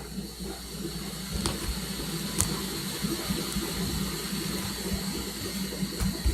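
Liquid bubbling and hissing, a steady watery fizz that slowly grows louder, with a few faint clicks.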